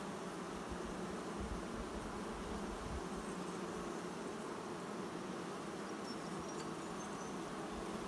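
Steady hum of honey bees from an open hive, its frames thick with bees.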